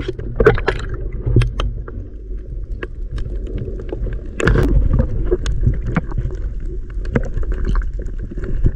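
Sea water heard underwater: a steady low muffled rumble of moving water with scattered sharp clicks and crackles, a cluster of louder clicks about halfway through.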